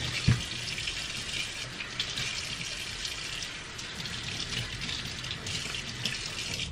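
Water running steadily from a kitchen sink tap as gloved hands rinse under the stream, with one short knock about a third of a second in.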